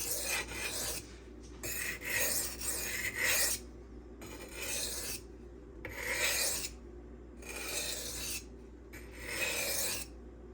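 M390 steel knife edge being drawn across a silicon carbide sharpening stone: about six rasping strokes with short pauses between them.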